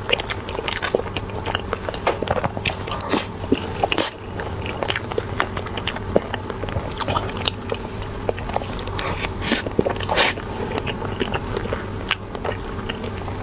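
Close-miked biting and chewing of soft cream cheese buns, with many irregular wet mouth clicks and smacks.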